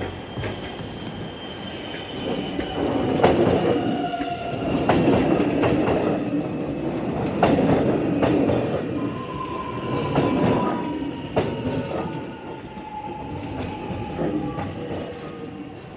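Melbourne suburban electric train passing at close range, its wheels clacking repeatedly over the rail joints. Thin whining tones slowly fall in pitch throughout.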